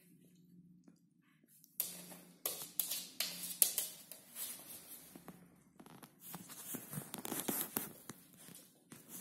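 A miniature pinscher scratching and pawing at a fleece blanket, its claws rustling and scrabbling over the cloth and the hard floor in irregular bursts that begin about two seconds in.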